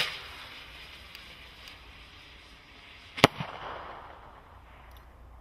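Vulcan 2.5-inch green peony shell rocket: the hiss of its climb fading away, then a single sharp bang about three seconds in as the shell bursts, with an echo trailing after.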